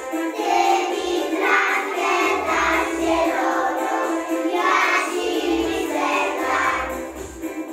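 A group of young children singing a song together in Polish, in chorus.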